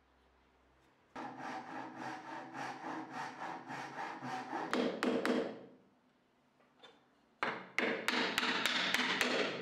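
Small hand saw cutting wood with rapid, short back-and-forth strokes. A run of strokes starts about a second in and stops a little past halfway, and a second, louder run starts near the end.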